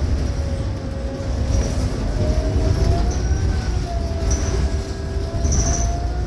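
A 2018 New Flyer XDE60 diesel-hybrid articulated bus, with a Cummins ISL9 engine and Allison hybrid drive, running on the road. There is a steady low rumble under a whine that drifts slowly up and down in pitch.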